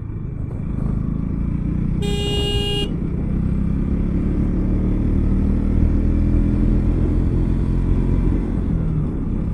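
Motorcycle engine running steadily while riding, with a vehicle horn tooting once for under a second about two seconds in.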